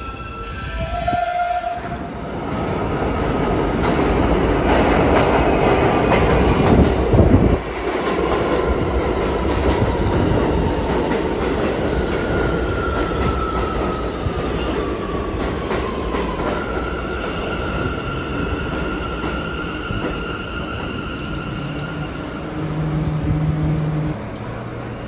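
New York City subway trains in a station. First a train rumbles along the platform, growing louder until it cuts off suddenly about seven seconds in. Then a train slows with a whine falling in pitch and stands with a steady high hum.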